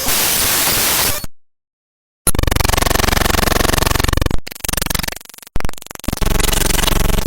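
A run of separate short sound effects: first a hiss of static-like noise lasting about a second, then a second of dead silence, then loud, harsh buzzing sounds with rapid pulses that change several times and break off briefly.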